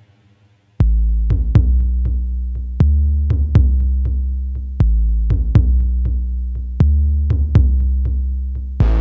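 Electronic music: after a faint, quiet opening, a drum-machine beat with deep, sustained bass comes in about a second in, its pattern repeating every two seconds. Near the end a fuller section with bright cymbals begins.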